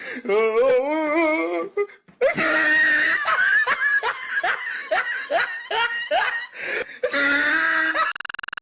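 A person laughing hard in a long run of quick, repeated bursts, after a wavering, drawn-out pitched call in the first two seconds. A steady pulsing tone cuts in near the end.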